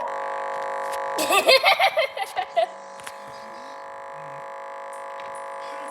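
A steady electronic buzzing hum of several tones that starts abruptly, with a person's voice talking or laughing over it for about a second and a half near the start.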